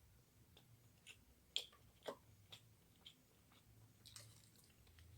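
Faint, close-miked chewing of fried rice: soft, scattered wet mouth clicks and smacks, the sharpest about a second and a half in.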